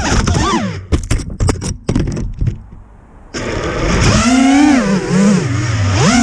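FPV quadcopter's brushless motors whining, pitch gliding up and down with throttle. Around a second in the whine breaks into a run of sharp knocks and scraping and drops nearly out; a little over three seconds in the motors spool back up and keep rising and falling.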